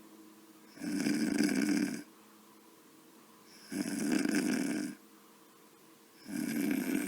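Person snoring, sped up, in a regular rhythm: three loud snores, each about a second long, with roughly two and a half seconds between their starts. The third begins near the end.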